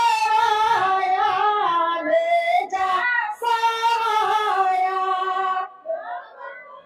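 A song with a high voice singing long, wavering held notes, breaking off for a short pause near the end.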